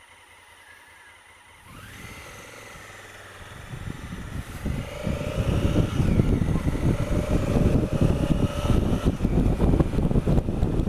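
Honda Africa Twin CRF1000L's parallel-twin engine pulling away from a stop and accelerating, its pitch rising and dropping at gear changes. From about four seconds in, loud wind buffeting on the helmet-mounted microphone builds with speed and covers most of the engine.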